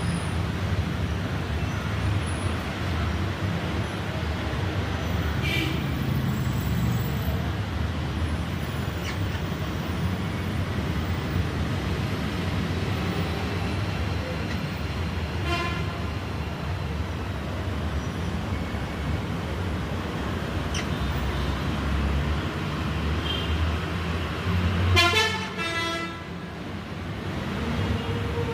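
Steady city traffic rumble, with a few brief high-pitched sounds and a louder, horn-like pitched sound about 25 seconds in.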